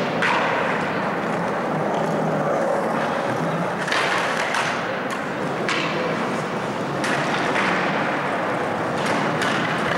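Skateboard wheels rolling on a concrete floor, broken by a string of sharp clacks and thuds of boards hitting the concrete: one just at the start, several between about four and seven seconds in, and two near the end. Each knock echoes in a large concrete hall.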